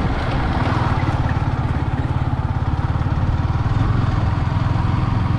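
Yamaha sport motorcycle's engine running steadily while ridden at low speed, heard from the rider's position.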